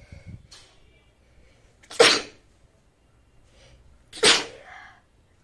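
A woman sneezing twice, about two seconds apart, each sneeze a short loud burst after a brief intake of breath.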